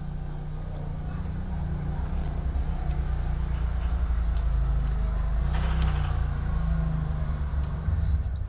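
A steady low engine-like rumble that grows a little louder through the middle, with a brief hiss about five and a half seconds in.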